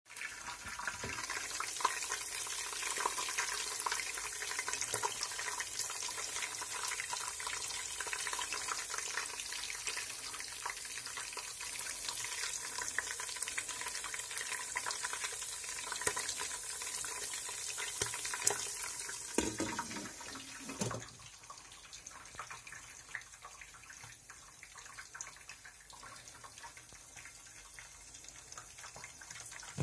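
Hot oil sizzling and spitting around popcorn kernels in a steel pot on the stove: a dense, steady crackle with many small sharp ticks. About two-thirds of the way through it gives way to a much quieter background.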